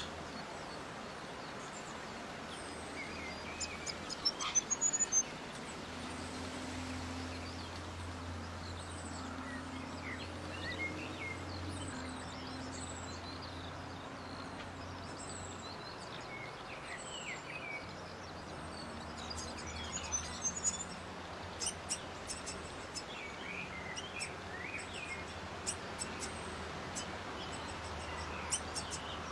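Small birds chirping in short, high calls, with quick clusters of chirps about four seconds in and again from about twenty seconds on, over a steady low hum.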